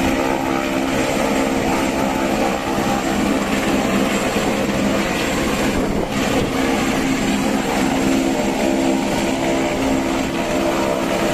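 A landed helicopter's engine and rotor running steadily on the ground, a constant hum with several steady tones.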